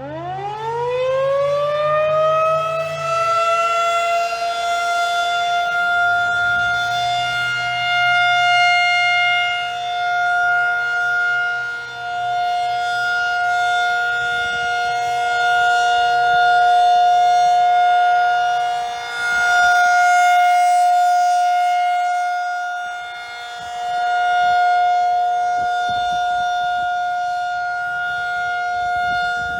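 Federal Signal 2001-SRN outdoor tornado siren winding up, its pitch rising over about three seconds, then holding a steady tone for a scheduled test. The loudness swells and dips every few seconds as the siren head rotates.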